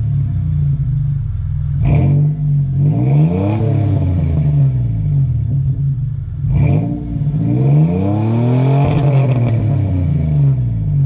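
A 2001 Toyota Tacoma's 3.4 L V6 running through a Flowmaster 40 Series muffler, idling and then revved twice, each rev climbing and falling back to idle. The exhaust's leaky welds are mostly sealed with JB Weld.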